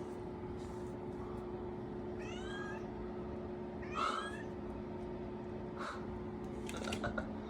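Kitten meowing twice, two short high-pitched mews about two seconds apart, over a faint steady hum.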